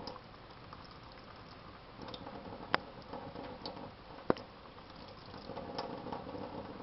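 Tap water running into a stainless steel sink, splashing as a Bengal cat puts its head and paws in the stream. Two sharp clicks about a second and a half apart stand out near the middle.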